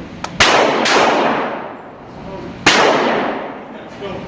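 Three rifle shots from a Smith & Wesson M&P15-22, a .22 rimfire AR-15-style rifle: two in quick succession about half a second in, then a third about two seconds later, each trailing off over about a second.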